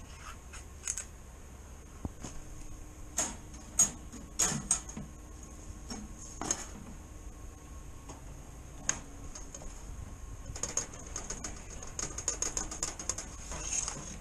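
Handling noise while a wire cage trap is baited and set: scattered sharp clicks and light knocks, then a quick run of small rattling ticks over the last few seconds.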